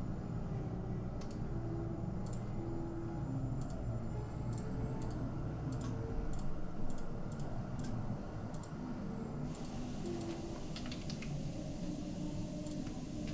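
Irregular clicks and keystrokes from a computer keyboard and mouse, coming faster from about two-thirds of the way in, over a steady low hum.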